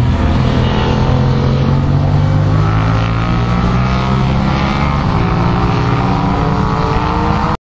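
Sport motorcycle engines running hard at high revs on a race track, their pitch climbing steadily as the bikes accelerate. The sound cuts off abruptly near the end.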